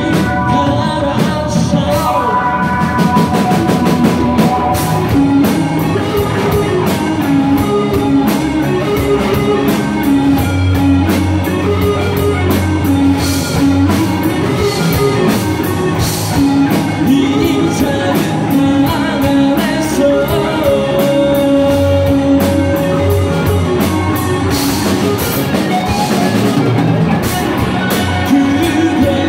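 Rock band playing live and loud: two electric guitars, electric bass and drum kit.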